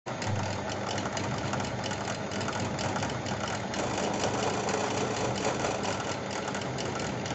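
Bench drill press running steadily, its motor humming while the bit grinds into the plate.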